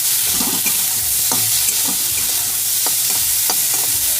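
Sweet corn kernels sizzling in hot oil in a kadai while being stirred, with the stirring spoon scraping and knocking against the pan at irregular intervals.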